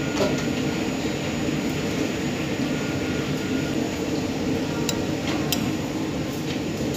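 A steady, loud mechanical drone with no change in pitch, with a couple of light clicks about five seconds in as a metal spoon touches the serving plate.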